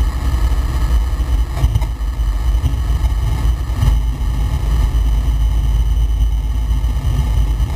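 Flight Design CTLS light aircraft heard from inside the cockpit while rolling along the runway: a steady low rumble from its Rotax 912 engine and propeller, with wheel and airflow noise. Two faint knocks come through, about two seconds in and again about four seconds in.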